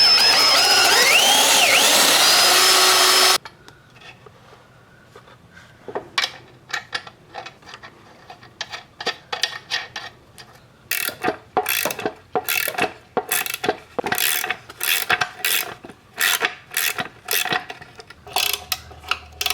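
A power drill runs for about three seconds and stops suddenly, then a hand ratchet clicks through short repeated strokes, tightening a bolt.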